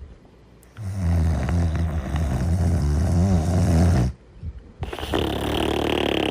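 Snoring in sleep. A long, deep, rattling snore starts about a second in and lasts about three seconds. After a short pause comes a breathier, higher-pitched snore.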